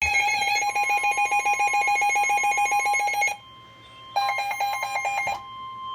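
Electronic emergency alert tones: a rapidly pulsing, buzzy tone for about three seconds, a short pause, then a second shorter pulsing burst. Beneath them a steady single-pitched alert tone holds throughout.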